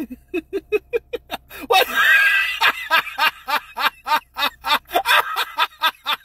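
A person laughing in a long run of quick, even chuckles, about five a second, broken about two seconds in by a spoken "What?".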